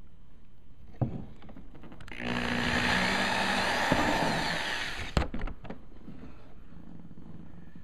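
A handheld power drill runs for about three seconds, starting about two seconds in. There is a sharp click about a second in and a couple of clicks just after it stops.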